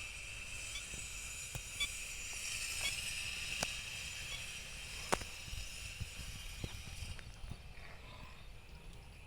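Outdoor natural ambience: a steady high hiss with faint short chirps about once a second and a few sharp ticks. The hiss drops away about seven seconds in.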